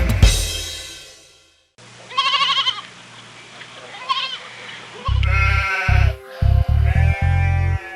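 Sheep bleating twice with a wavering, quavering call, about two seconds in and again, more briefly, about four seconds in. Song music fades out before the bleats, and music with a pulsing bass line starts about five seconds in.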